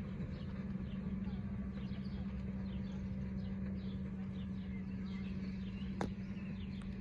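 Small birds chirping and twittering in the background over a steady low hum, with a single sharp click about six seconds in.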